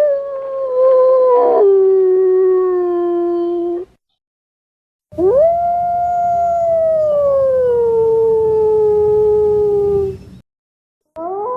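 Eurasian wolf howling: three long, pitched howls separated by short clean gaps. The first breaks and drops to a lower note about a second and a half in and ends near four seconds; the second swoops up sharply and then slides slowly down over about five seconds; a third, steadier howl starts just before the end.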